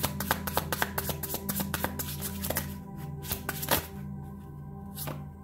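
A deck of oracle cards being shuffled by hand, a quick run of card clicks and slaps that stops about four seconds in, over soft background music with a steady pulsing low note.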